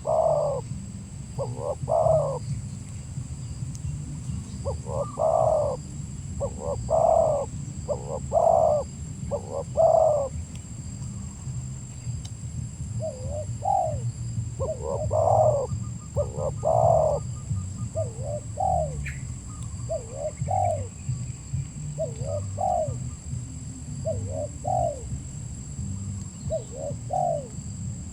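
Spotted dove (tekukur) cooing: repeated phrases of low coos, longer and louder notes through the first half, then shorter coos at about one a second in the second half, over a steady low rumble.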